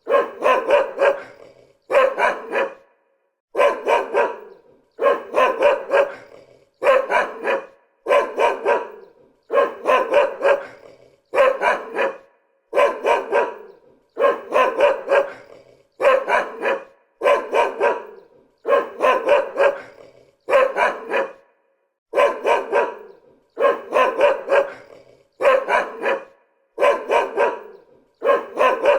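A dog barking in short bouts of a few barks each, about one bout every second and a half with short silences between. The bouts repeat almost identically, as a looped recording.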